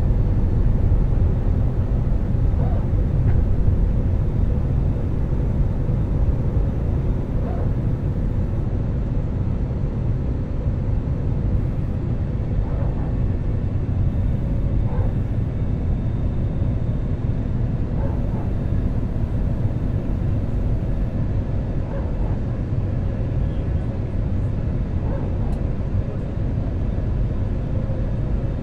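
Airbus A320 cabin noise in flight: a steady low rumble with a thin, steady hum running through it.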